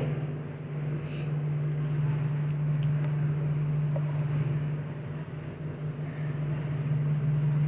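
A steady low hum, with a few faint clicks and rustles of a cardboard box and paper leaflet being handled.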